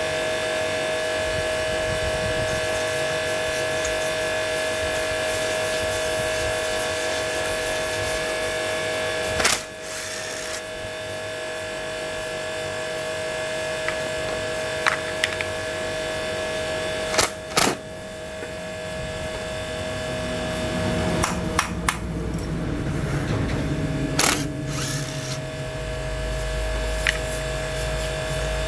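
A steady mechanical hum with a fixed whining tone, broken by a few sharp clicks or knocks. In the last few seconds the sound shifts and a deep low rumble comes in.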